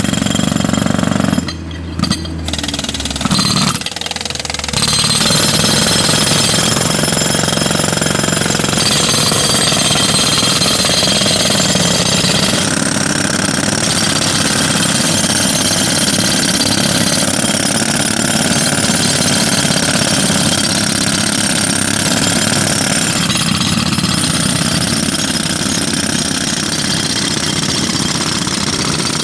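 Pneumatic jackhammer hammering, with a few short stops in the first five seconds and then running steadily.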